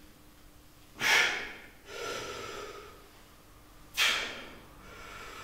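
A man's forceful breathing while lifting a barbell in hip thrust repetitions: two sharp breaths about three seconds apart, each followed by a quieter, longer breath.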